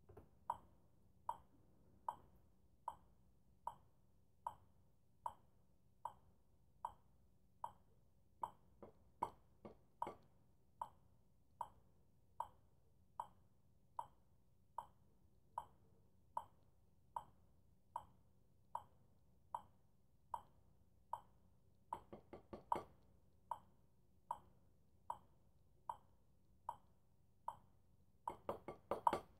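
Metronome clicking steadily at about 75 beats a minute. Short clusters of quicker taps come in three times, about a third of the way in, about three-quarters through, and near the end.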